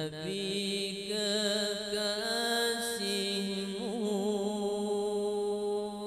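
A man's solo voice chanting an Arabic qasidah without accompaniment, holding long notes with a wavering melismatic ornament about four seconds in.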